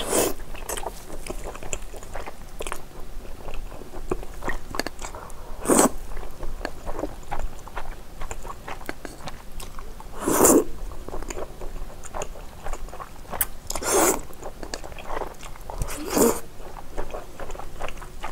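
Close-miked chewing of thick Chinese glass noodles, with many small wet mouth clicks, broken by about five louder slurps as the noodles are drawn in.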